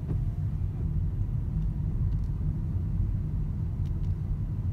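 Car cabin noise while driving slowly down a wet hill road: a steady low rumble of engine and tyres, with a few faint ticks.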